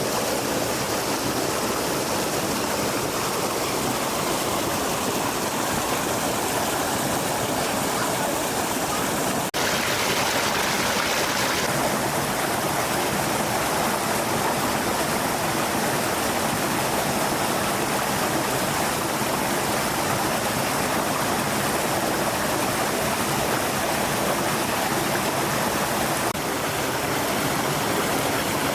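Stream water flowing steadily. The rushing sound changes abruptly about ten seconds in and again near the end.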